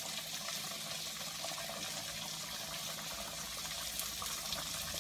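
Steady, even sizzling hiss of food cooking on the stove, with no distinct knocks or clicks.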